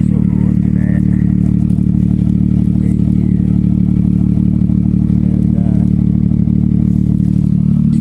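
Car's V-type engine idling steadily and really loud, its exhaust pipe broken off and leaking just ahead of an oxygen sensor.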